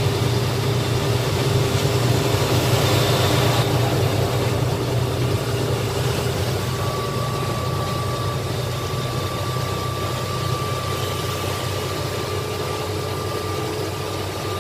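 Lorry engine and road noise heard from inside the cab while driving: a steady low drone with a faint constant whine. A higher whine joins about halfway through.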